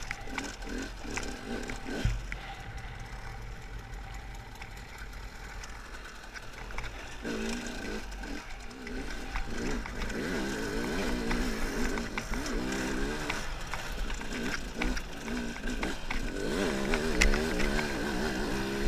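KTM two-stroke enduro motorcycle engine running under the rider. From about seven seconds in it gets louder, and the revs rise and fall again and again as the throttle is worked.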